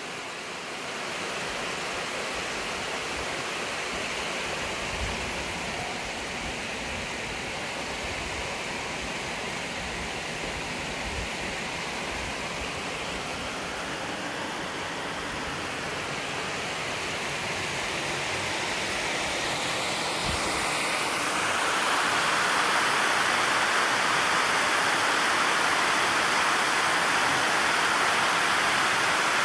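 Steady rush of water spilling over the dam's overflow weir, growing louder about twenty seconds in.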